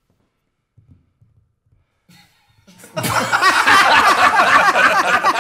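Near silence for about three seconds, then a group of men bursts into loud laughter together.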